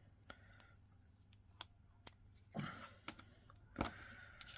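Quiet handling of paper and cardstock on a craft desk: scattered light clicks and taps, with a couple of short rustles or knocks, the loudest about two and a half and four seconds in.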